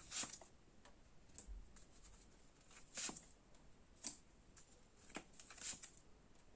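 Tarot cards being handled and laid out: a few soft, brief card swishes and taps, scattered and a second or so apart.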